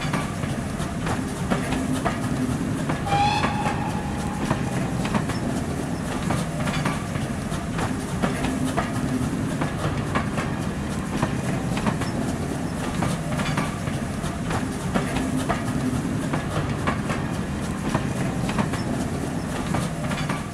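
A passing train, with a steady low running noise and repeated clicks of the wheels over rail joints. A brief high tone is heard about three seconds in.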